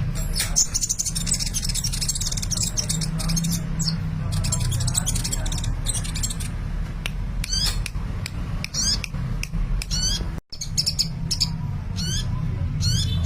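Sunbird (Indonesian 'kolibri') singing in full voice: bursts of rapid, high-pitched chirps and trills that come and go every second or so, over a steady low hum. The sound drops out completely for an instant about ten seconds in.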